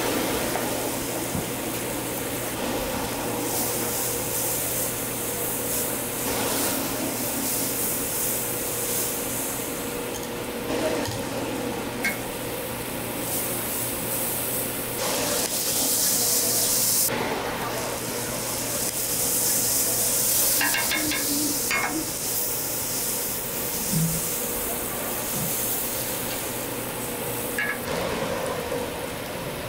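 Egg-and-cabbage toast patties sizzling on a flat steel griddle, the hiss swelling and easing. A metal spatula and tongs clink and scrape a few times, over a steady low hum.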